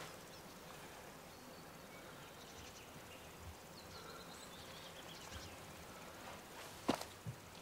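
Quiet outdoor ambience with faint birds chirping in the distance. Near the end, two sharp knocks.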